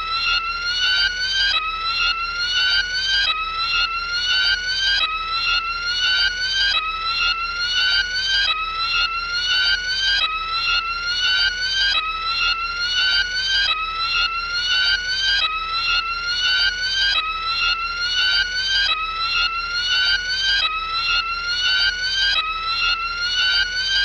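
A high-pitched electronic tone that glides upward, repeated over and over without a break, a little more than once a second, like an alarm.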